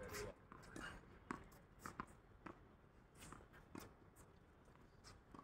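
A racket striking a tennis ball on a serve right at the start, then several faint, short pops and clicks scattered through the quiet, typical of tennis balls being hit and bouncing on a hard court.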